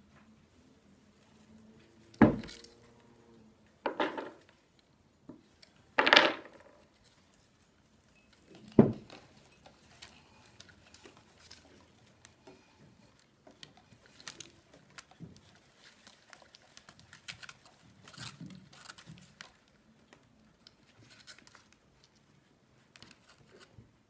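Four loud knocks and bumps in the first nine seconds, the first with a short ring, as a potted ponytail palm is fetched and set down. Then soft rustling, scraping and little clicks of soil and pot as the root ball is worked loose and pulled out of its pot.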